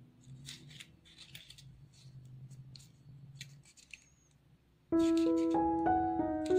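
Origami paper rustling and crinkling in short scratchy strokes as it is folded and creased by hand. About five seconds in, louder piano music starts.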